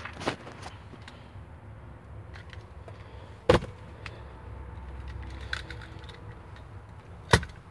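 Two sharp knocks of hard plastic items set down on a pickup truck's plastic centre-console lid, one about three and a half seconds in and one near the end, over a low steady rumble.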